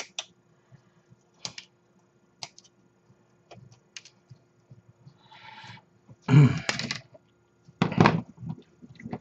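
Small clicks and taps of plastic kit parts and hobby tools being handled on a workbench, scattered and sparse at first, then two louder bursts of knocking and rustling later on.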